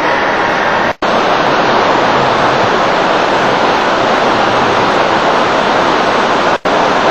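Loud, steady rush of creek water, cut off briefly twice by sudden dropouts.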